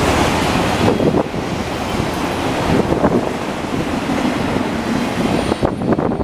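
Freight train of auto rack cars rolling past: a steady roar of steel wheels on rail with a few knocks. The roar thins near the end as the last car goes by.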